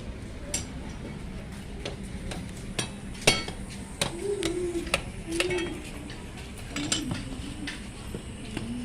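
Sharp clicks and clinks of hard battery parts and tools being handled and knocked together, irregular, the loudest a little over three seconds in, over a steady low hum.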